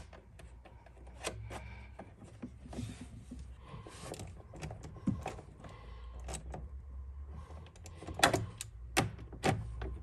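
Clicks and metallic clinks of a socket wrench on an extension bar tightening the bolts of a car's bonnet release catch, with a few louder knocks near the end.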